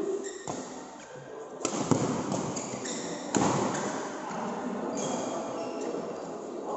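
Badminton rally in a sports hall: several sharp racket hits on the shuttlecock, spaced unevenly about a second apart, over echoing hall background noise, with short high squeaks later on.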